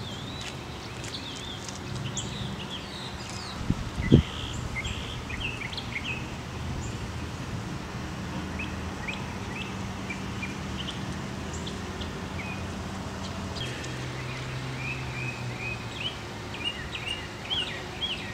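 Outdoor ambience of songbirds chirping and singing over a steady low hum, with a single sharp knock about four seconds in.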